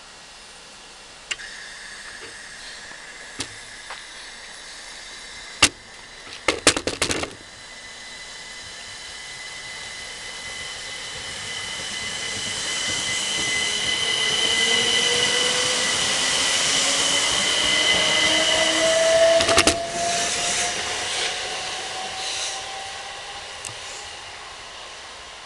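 Class 375 Electrostar electric multiple unit pulling away and passing close by, a whine from its drive rising slowly in pitch as it picks up speed, over a steady high squeal. It grows louder to a peak as the train goes past, then fades as it draws away. A cluster of sharp knocks comes about six to seven seconds in.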